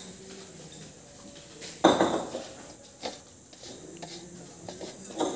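Metal plate being scrubbed by hand with soapy water, with a sharp metallic clank of dishware about two seconds in and another near the end.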